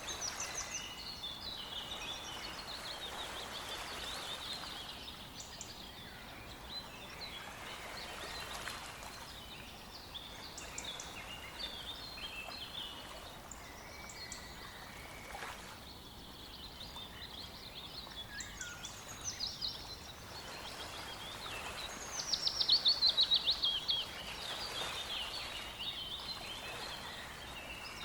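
Several songbirds singing and chirping over a steady rush of river water. About 22 seconds in, one bird gives a loud, fast trill of falling notes that lasts about two seconds.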